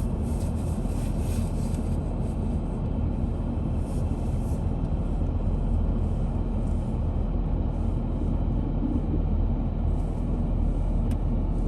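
Tow truck's engine running with a steady low rumble and hum.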